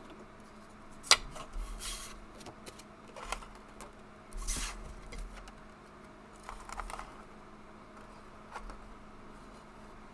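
Tarot cards being handled and drawn from the deck: a few short slides, rustles and flicks of card stock, with a sharp tap about a second in.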